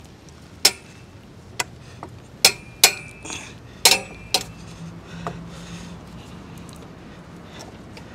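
Sharp metallic clinks of a screwdriver and a steel center-stand spring's hook knocking against the motorcycle's steel center stand as the spring is pried into place. About six loud clinks fall in the first four and a half seconds, some ringing briefly, then only faint scrapes.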